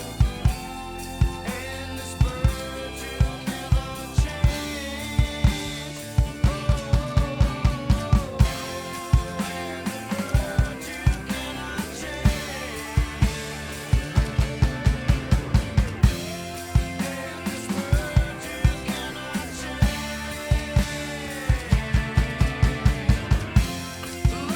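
Drum kit played along to a rock recording, with a lead line bending up and down over it. The bass drum comes in quick runs of several strokes a second, with snare hits between.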